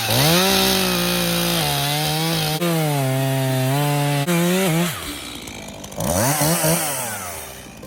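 Stihl chainsaw revving up and cutting into a tree stump, the engine's pitch sagging and recovering as the chain bites the wood. It drops back to a lower speed about five seconds in, then is revved up and down a few times near the end.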